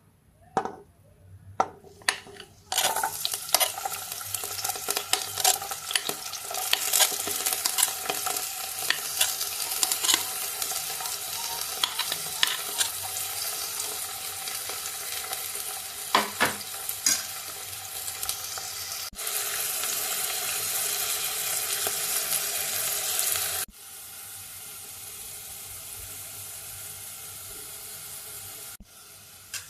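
Food frying in hot oil in a pan: after a few taps, a loud sizzle starts suddenly about three seconds in, with scattered scrapes and knocks of a utensil stirring. The sizzle drops to a quieter level about three quarters of the way through.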